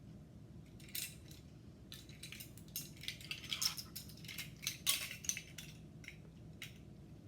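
Measuring spoons clinking and rattling against each other as the set is handled: an uneven run of small, light clinks, thickest in the middle.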